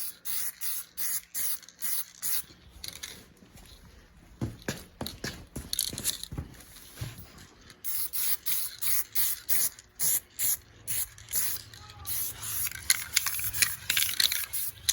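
Aerosol spray can of flat black paint hissing in many short spritzes, several a second. They pause briefly midway, where a few light knocks are heard.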